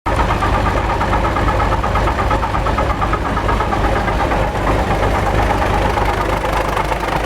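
MTZ tractor diesel running steadily with a strong hum from the gearbox, which the owner puts down to worn 212 bearings on the creeper reducer.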